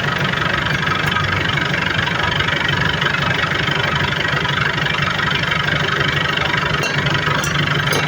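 Mitsubishi L300 engine idling steadily through an aftermarket 'serigala' racing exhaust, a deep rumbling pulse tuned for the 'ngorok basah' (wet snore) note.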